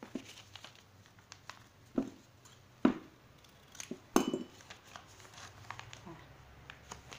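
Folded paper pattern pieces handled by hand over fabric, with scattered light clicks and three sharper knocks about two, three and four seconds in.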